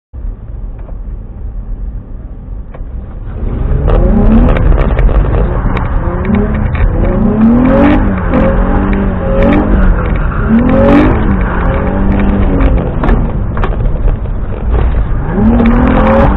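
Car engine heard from inside the cabin. It runs low and steady at first, then from about three and a half seconds in it revs hard again and again, its pitch climbing, holding and dropping roughly once a second: throttle work while drifting on a wet road.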